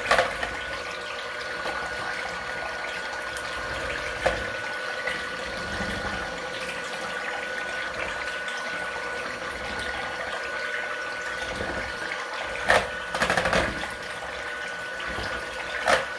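Electric hand mixer running steadily with a thin motor whine, its beaters whirring through instant vanilla pudding and milk as the mix starts to thicken. A few sharp knocks of the beaters against the bowl come about 13 seconds in and near the end.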